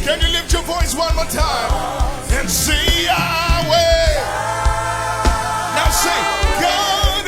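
Live gospel worship music: a lead voice singing over a band with bass and a steady drum beat.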